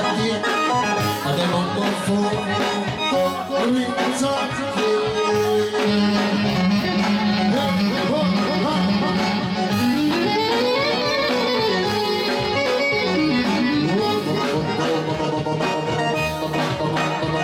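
Live Greek folk dance music: a clarinet leads an ornamented melody with sliding notes over keyboard and drums, with a long bending phrase about ten seconds in.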